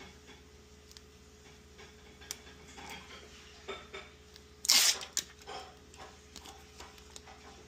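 Light clicks and knocks of hands handling a battery and adhesive Velcro strips, with one short, harsh rasp about five seconds in: hook-and-loop Velcro pulled apart.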